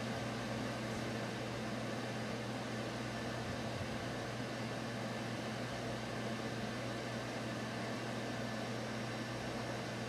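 Steady low hum with an even hiss: the constant background noise of a small room, of the kind a fan or air conditioner makes, with nothing else happening.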